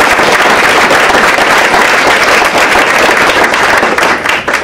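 An audience applauding: many hands clapping in a dense, steady patter that starts to tail off at the very end.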